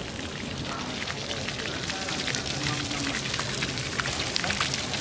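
Outdoor city street ambience: a steady hiss with a dense patter of small ticks that thickens after about two seconds, and faint voices of passers-by.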